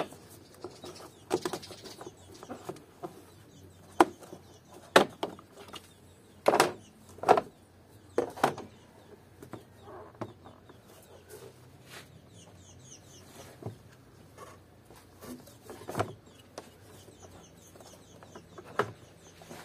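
Plastic clacks and knocks of a car's air filter housing being worked loose and lifted out of the engine bay, a sharp knock every second or few with quiet handling between.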